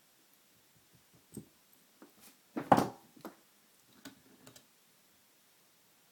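Small metal clicks and taps of a gutted pin-tumbler lock's parts being handled, with a louder clatter of several quick knocks a little under three seconds in.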